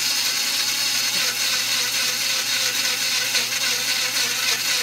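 Small electric coffee grinder, used for spices, running steadily with its lid held down, whirling pieces of plain waffle that soak up the garlic left inside to clean it out.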